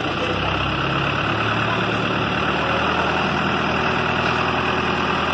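New Holland TL75E tractor's diesel engine running steadily, loud. Its low engine note grows stronger just after the start and then holds even.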